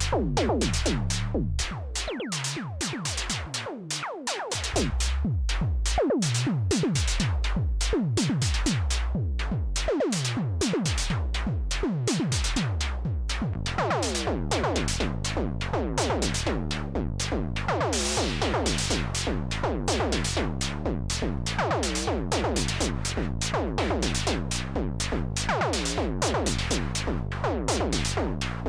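Behringer SY-1 Syncussion analog drum synthesizer playing a fast sequence of dry electronic drum hits, each one a tom-like tone that sweeps down in pitch, several hits a second. About 18 seconds in, a burst of noisy hiss joins the hits.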